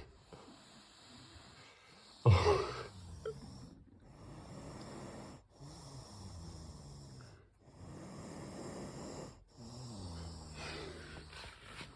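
Sleeping pit bull snoring and wheezing close by. One loud, sudden breath comes about two seconds in, then four long, rattling snores about two seconds apart.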